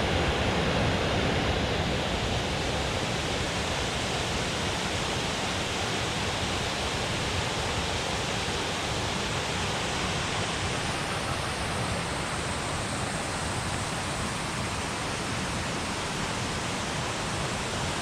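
Water rushing steadily over a dam spillway, a constant roar of falling water, a little louder in the first two seconds.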